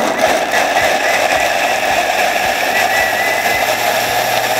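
Kitchen robot blending pieces of caciocavallo cheese with milk at high speed: a steady, loud motor whir with a faint high whine above it.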